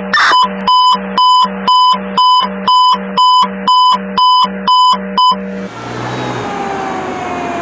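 An electronic alarm beeps about eleven times, roughly two beeps a second, each a fixed multi-tone beep, and stops about five and a half seconds in. Then a fire truck's siren takes over, its pitch slowly falling, from a 2002 Pierce Dash ladder truck.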